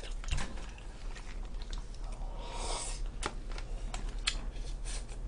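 Close-miked eating sounds: chewing with scattered sharp mouth clicks, and a short hissing rustle a little past halfway.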